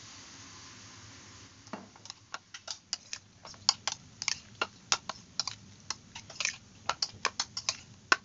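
Metal spoon clicking against a bowl while stirring cubed raw chicken in its marinade: quick, irregular clicks, about three a second, starting a little under two seconds in.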